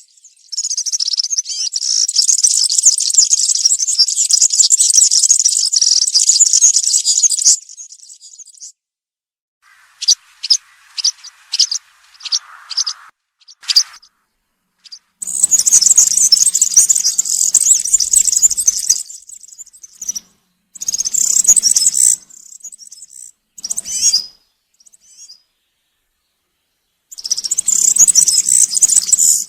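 European serin (verdecillo) singing its high-pitched, fast, buzzy song in repeated bouts. The first bout runs about seven seconds, a string of short separate notes follows, and then come several shorter bursts of song.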